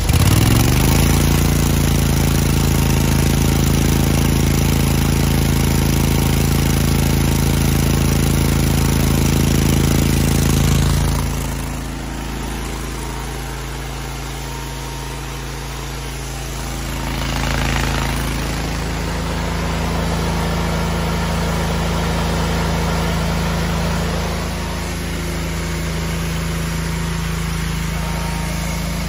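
Engine of an engine-driven high-pressure washer running steadily and driving its brass plunger pump. Its pitch settles in the first second, it turns quieter about eleven seconds in, and it picks up again near eighteen seconds.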